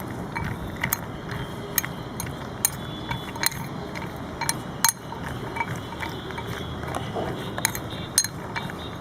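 Cashew nuts being stirred in a bowl with a spoon: irregular light clicks and clinks, a few a second, over a steady low background.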